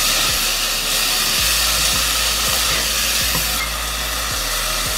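Soaked brown rice, onion and fenugreek leaves sizzling in hot oil in an aluminium pressure cooker as they are stirred with a wooden spatula; a loud, dense hiss that eases a little after about three and a half seconds.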